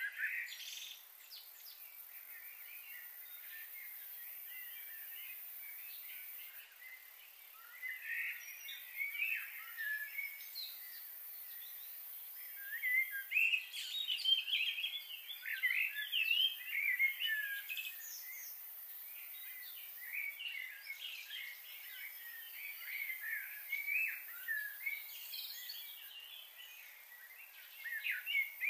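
Small birds chirping in short, quick calls that come in several clusters, with quieter stretches between them.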